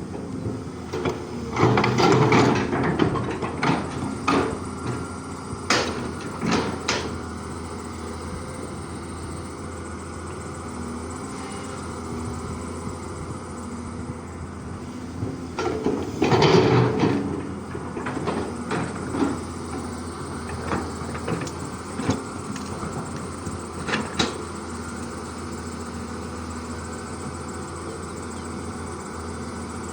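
Cat 320D excavator's diesel engine running steadily as the machine works, with a cluster of loud clunks and clattering about two seconds in and again around sixteen seconds, and scattered single knocks between them.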